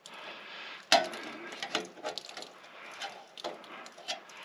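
Light clicks and taps of a screwdriver and hands on a stainless steel flue pipe cap, with one sharper click about a second in.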